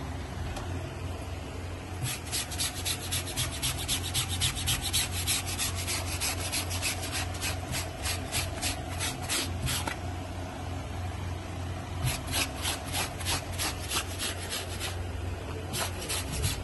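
Stiff bristle brush with a wooden back scrubbing a wet, chemical-treated shirt on a washing slab, working the last traces of stain out after soaking. Quick back-and-forth strokes, about four a second, come in two spells with a short pause between them. A steady low hum runs underneath.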